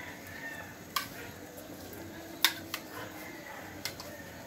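A metal spoon clinking against a bowl while it stirs and scoops pieces of raw meat: four sharp clinks, the loudest about two and a half seconds in.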